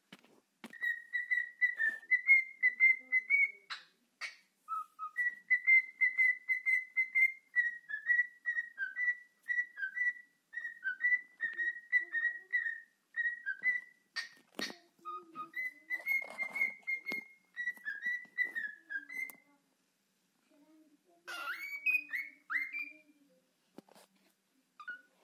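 Cockatiel whistling its song: a long run of short, quick notes near one pitch, with a few lower notes in between. It breaks off briefly about 4 seconds in and stops near the three-quarter mark, followed by a few sliding chirps.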